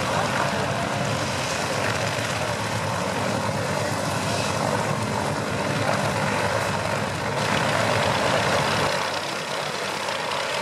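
Yak-52 trainer's nine-cylinder radial engine running steadily at taxi idle, propeller turning. About nine seconds in, the low rumble drops away.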